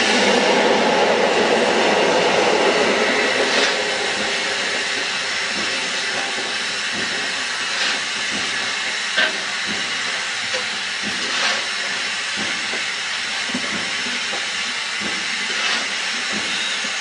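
Steam locomotive hissing steam, loudest for the first few seconds and then steadier, with a few scattered sharp knocks.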